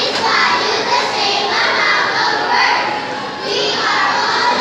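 A class of young children's voices performing together in unison, many voices at once.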